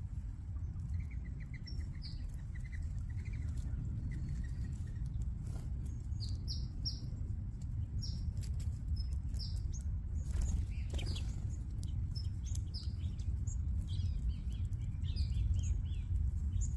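A flock of small songbirds at a backyard feeder chirping and calling, many short high chirps overlapping, with a short trill in the first few seconds. A brief louder rush of sound comes about ten seconds in, over a steady low rumble throughout.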